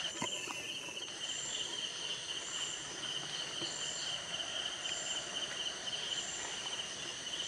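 Night insects, crickets, calling: a steady high trill throughout, with a higher chirp repeating about once a second.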